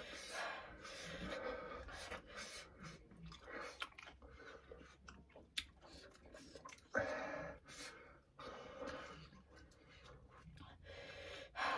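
A person chewing food close to the microphone, with many small wet mouth clicks, and a few short stretches of quiet speech.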